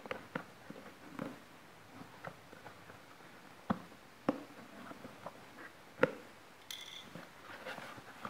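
A blade cutting the packing tape on a cardboard box, and the box being handled and its flaps opened: scattered scrapes, taps and sharp knocks on the cardboard, the loudest in the middle. A brief high squeak comes about two-thirds of the way through.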